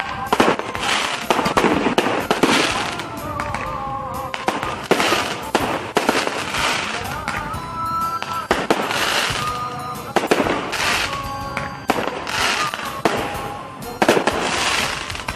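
Fireworks and firecrackers going off in a dense string of bangs and crackles, with louder blasts every second or two.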